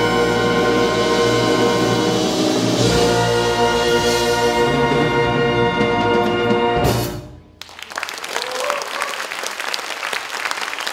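A wind orchestra of brass, saxophones and clarinets plays loud sustained closing chords that cut off together about seven seconds in. The audience then applauds.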